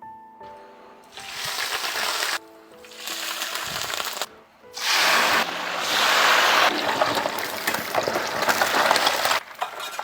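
Soft piano background music under three long bursts of loud hissing, crackling noise, starting about one, three and five seconds in; the longest lasts nearly five seconds.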